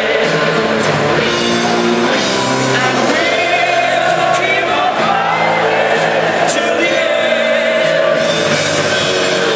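Loud rock song with singing, played over a football stadium's PA system during the post-match celebrations.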